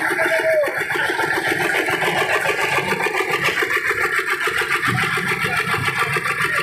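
Diesel engine of a concrete mixer running steadily, with a rapid, even chugging beat.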